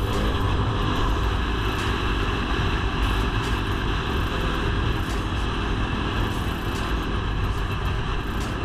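Dirt bike engine running steadily while the bike rides a gravel trail, heard from a camera on the bike, with a constant rushing rumble and a few light knocks.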